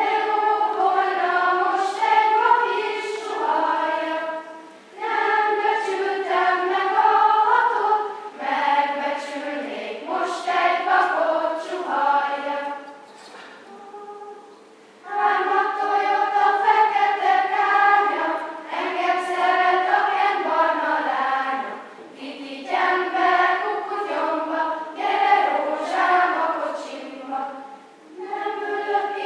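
Children's choir singing in sustained phrases, dropping to a soft, brief lull about halfway through before coming back in full.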